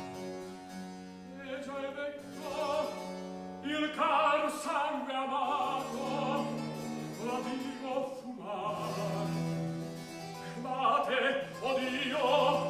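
Tenor singing an Italian operatic recitative in phrases, accompanied by harpsichord continuo over long-held low bass notes.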